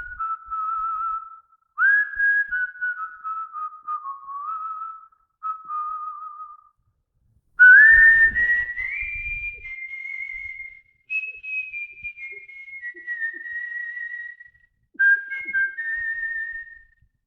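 A man whistling a slow melody by mouth, unaccompanied, in phrases of held notes and short slides, with a wavering vibrato on the longer notes. The melody pauses briefly near the middle and starts again with a loud, higher phrase.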